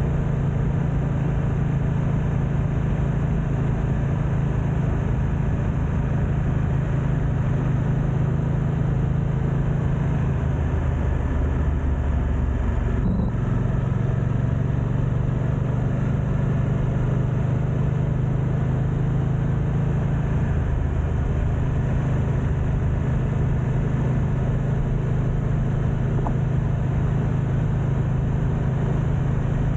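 BMW F900XR parallel-twin engine running under way, a deep steady note mixed with wind rush on the camera's built-in microphones. The engine note dips and shifts about halfway through, with a brief break, and shifts again a little later.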